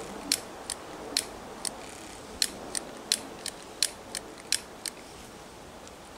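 A lighter being clicked over and over, about a dozen sharp clicks, while trying to light the wood stove's kindling from underneath. The clicks stop about five seconds in; the fire has not caught.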